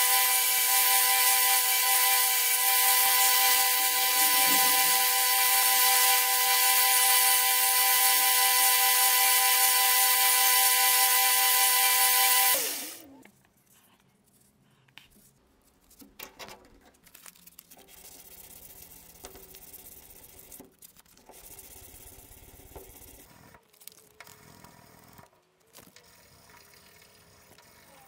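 Belt grinder running with a steady whine while a wooden knife handle is sanded against it; the sound cuts off suddenly about halfway. After that come quiet, irregular rubbing and scraping of hand sanding on the handle.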